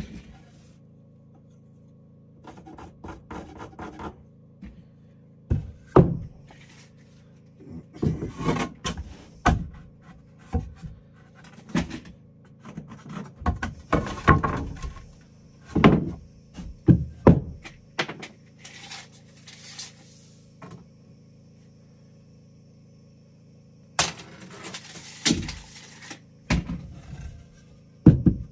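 Irregular knocks and thuds with short scraping noises from hand work with wood and tools, coming in clusters with pauses between, over a faint steady low hum.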